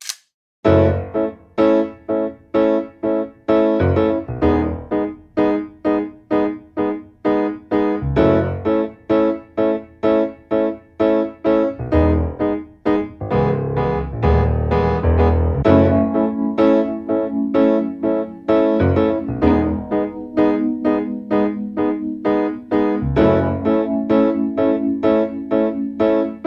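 Background music: a piano or electric piano playing a steady, evenly repeated pattern of notes with a bass line.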